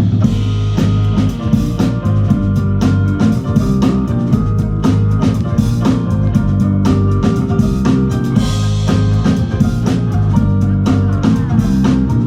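Music with a steady drum-kit beat under sustained pitched notes.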